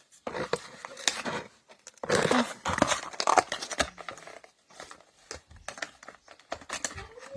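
Toy packaging crinkling and rustling in irregular bursts with small clicks, as a toy motorbike and figure are worked free of the box insert.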